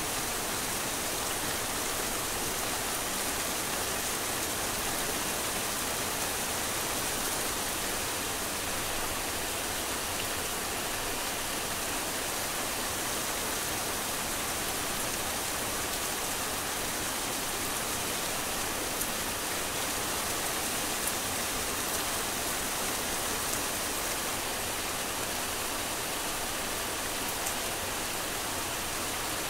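Heavy rain falling steadily, a dense even hiss with a few sharper drop ticks here and there.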